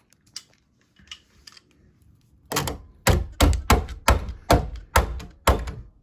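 A few light clicks as a new drive-in ball catch is handled, then about halfway in a run of about ten hard knocks, about three a second, as the catch is hammered into its hole in the edge of a wooden closet door because it is too tight to push in by hand.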